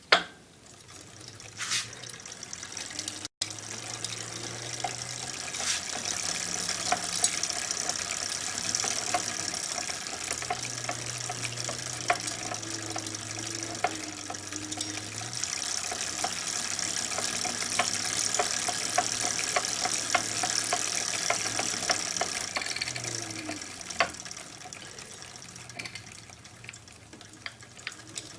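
A2B Metro electric bike being ridden: a steady rushing hiss that builds over the first few seconds and eases near the end, under a low hum that shifts pitch a few times. A scatter of sharp clicks and knocks runs through it, the pedaling knock that the owner suspects comes from an under-greased freewheel.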